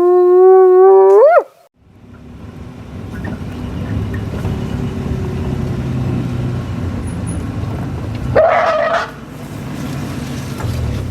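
An animal's long howl that holds one pitch, then slides sharply upward and stops. A steady low rumbling noise follows, with one short, loud call about eight and a half seconds in.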